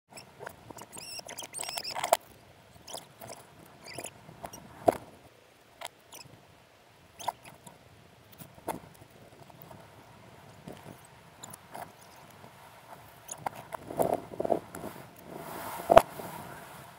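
Mountain bike rattling over paving: scattered sharp clicks and knocks from the frame and parts, with short high squeaks in the first couple of seconds and a loud knock near the end.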